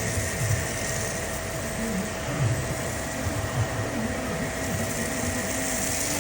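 Eletroplas EL4000 pressure washer running, a steady motor hum with a constant whine.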